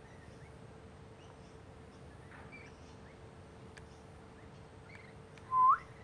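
Crested pigeon giving a single short whoop near the end, a note that holds low and then sweeps sharply upward. Faint, scattered chirps of small birds run underneath.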